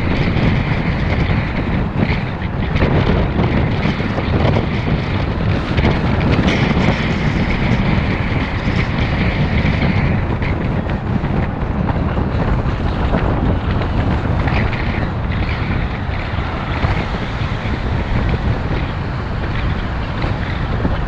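Wind buffeting the microphone over the steady road and engine noise of a Ford Mustang convertible driving at city-boulevard speed.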